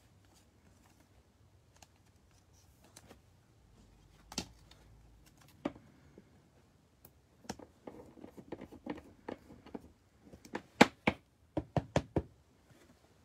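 Hands handling things on a tabletop: scattered light clicks and taps, then a quick run of about half a dozen sharp knocks on the table in under two seconds near the end.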